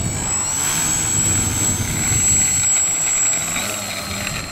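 Electric motor and propeller of a small foam RC trainer plane running at speed on its takeoff roll, a steady high whine, with wind rumbling on the microphone.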